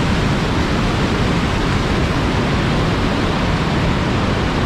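Box Canyon Falls, an 85-foot waterfall on Canyon Creek, pouring into a narrow quartzite canyon: a loud, steady rush of falling water.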